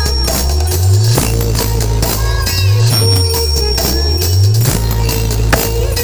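Loud music played through a DJ sound system, led by a heavy bass line whose notes slide up and down in a pattern repeating about every two seconds.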